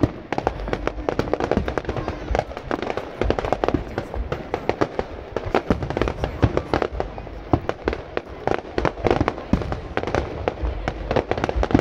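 Aerial fireworks display with shells bursting in rapid succession: a dense, continuous run of bangs and crackles, several every second.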